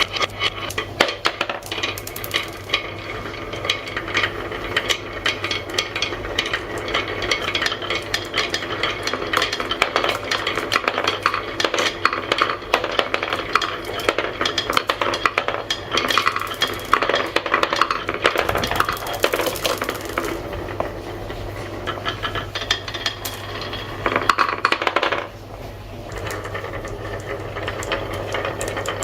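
Marbles rolling and clattering down a marble run: a dense, continuous stream of clicks and clacks over a steady low hum. The clatter drops off suddenly about 25 seconds in, then picks up again more softly.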